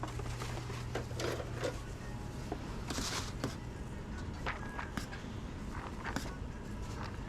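Restaurant kitchen background: a steady low hum of kitchen equipment, with scattered clicks and clatter and a brief hiss about three seconds in.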